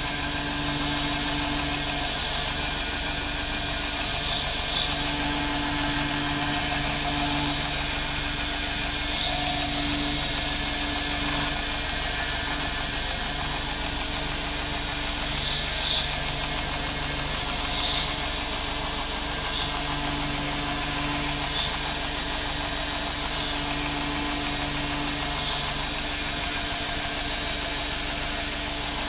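Belt grinder running steadily, its abrasive belt grinding the face of a knife handle. A low hum comes and goes in stretches of a few seconds.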